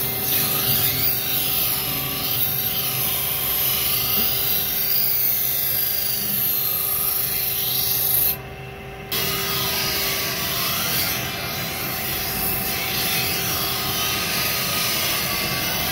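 Motor-driven grinding wheel grinding a steel scythe blade: a steady, loud rasping hiss over the wheel's motor hum. The sound drops away for under a second about eight seconds in.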